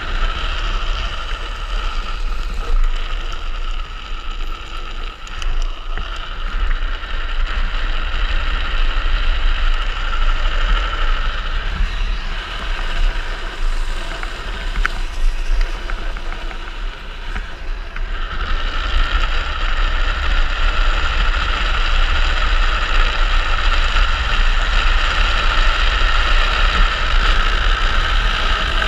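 Wind rushing over the camera microphone and a gravity speed trike's wheels rumbling on asphalt during a fast downhill run. The noise eases for several seconds in the middle as the trike slows through a tight bend, then builds again as speed picks up.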